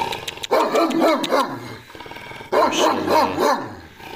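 Large alabai (Central Asian Shepherd) guard dog barking from its kennel run, in two bouts of several deep barks about two seconds apart.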